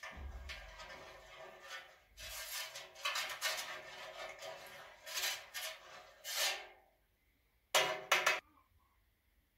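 Metal spoon stirring a liquid in a stainless steel tray, swishing and scraping and clinking against the metal in a run of strokes, then two sharp clinks about eight seconds in.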